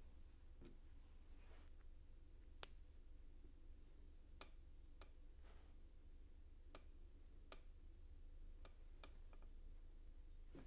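Small LEGO plastic pieces clicking as they are handled and pressed together, a dozen or so light, sharp clicks at uneven intervals, the loudest about two and a half seconds in. A faint low hum runs underneath.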